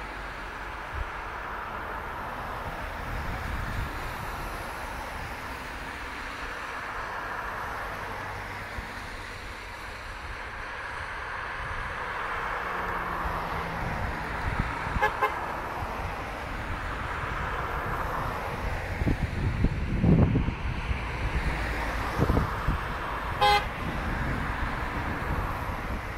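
A convoy of cars driving past on a wet road, a steady hiss of tyres and engines that swells as vehicles pass close. A car horn gives short toots about halfway through and again near the end.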